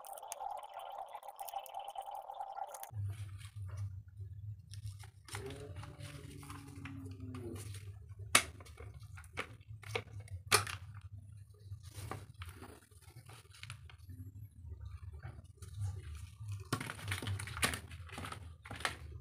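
Scattered light clicks and ticks of small screws, an Allen key and plastic parts being handled as the base pad of a Black & Decker detail sander is unscrewed and lifted off. A steady low hum starts about three seconds in.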